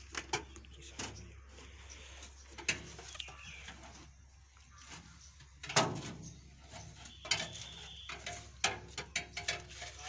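Irregular clicks and knocks of handling on a combine harvester's operator platform, with a heavier thump about six seconds in.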